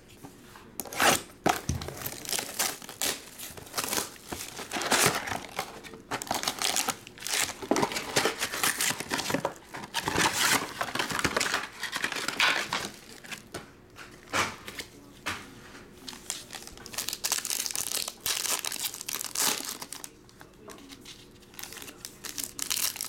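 Plastic and foil wrapping crinkling and tearing in irregular crackly bursts as a trading card box is unwrapped and its foil card packs are torn open.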